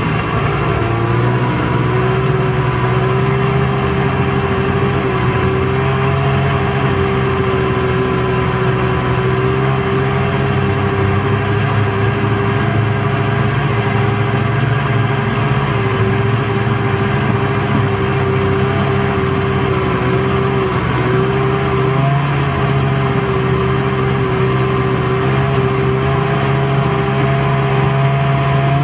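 Snowmobile engine running at a steady riding speed, heard from on the machine. It holds one steady note after easing down slightly about a second in.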